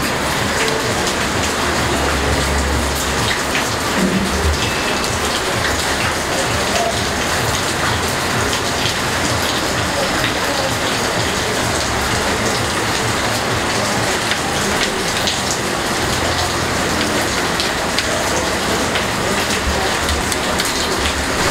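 Steady rain: an even hiss with scattered small ticks throughout.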